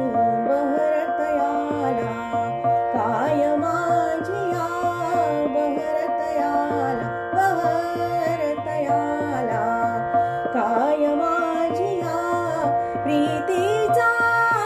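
A woman sings a Marathi natyageet in raag Bihag, her voice gliding through ornamented phrases. Under her voice runs a steady drone and a repeating tabla rhythm.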